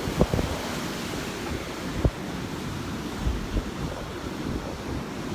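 Rough Gulf surf washing in steadily, with wind buffeting the microphone in a few short low rumbles.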